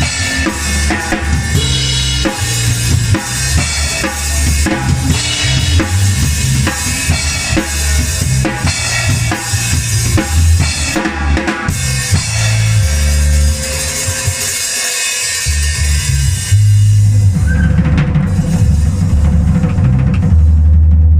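Drum kit played with a band, kick, snare and cymbals over low bass notes and held chords. The drumming is busy for about the first twelve seconds, then thins out, and the band's held low notes grow louder near the end.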